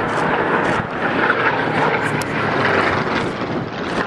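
Supermarine Spitfire fighters flying past, their piston engines making a steady drone.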